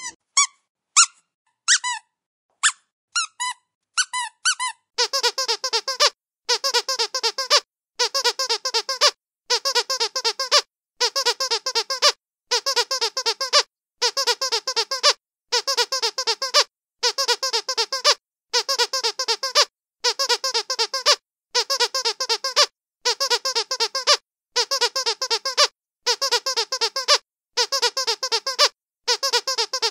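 Dog's squeaky toy being squeezed. It gives scattered single squeaks for the first few seconds, then quick runs of squeaks in bursts about a second long, repeating about every second and a half.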